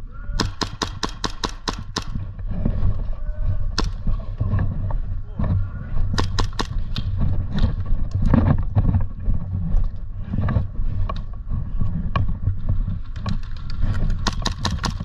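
Airsoft gunfire: a fast volley of sharp clicking shots about eight a second near the start, scattered single shots, and another rapid volley near the end, over a steady low rumble.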